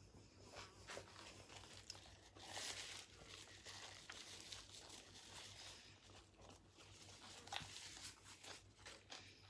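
Faint crinkling and rustling of a paper burger wrapper being handled, in short spells about two and a half and seven and a half seconds in, with small clicks between.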